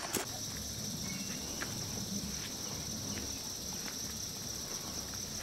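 A steady, high-pitched drone of insects in the forest, with a few faint scattered ticks.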